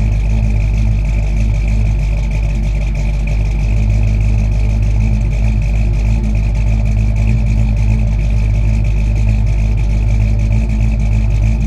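A vehicle engine running steadily and evenly, with no revving.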